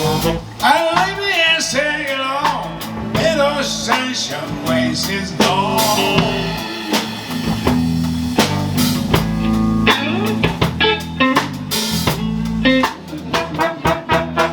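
Live Dixieland jazz band playing: a bending lead melody over a stepping bass line and steady drum-kit strikes.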